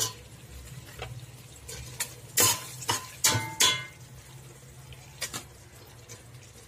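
A long steel spoon clinking against a stainless-steel pot as raw chicken pieces are added to masala: several sharp metallic clinks with a short ring, the loudest in the middle.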